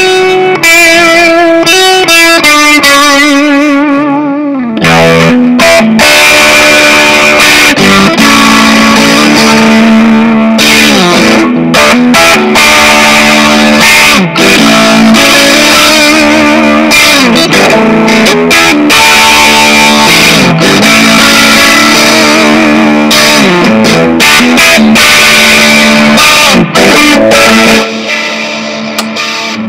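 Squier Mini electric guitar played with distortion. The opening notes waver with vibrato, then a heavy riff follows with repeated string bends. Near the end it drops quieter and stops.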